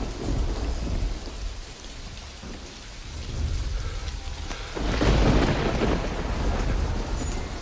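Heavy rain falling steadily, with a loud clap and rumble of thunder about five seconds in.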